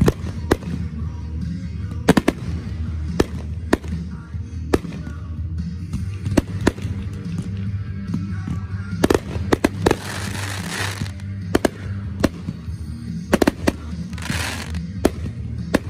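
Aerial fireworks firing in a fast string of sharp bangs, with two longer crackling stretches, about nine seconds in and near the end. Music with a steady bass line plays underneath.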